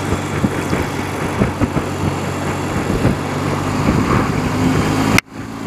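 A 30-year-old BMW motorcycle's engine running steadily while riding along, with road and wind noise. The sound drops out abruptly for a moment about five seconds in, then resumes.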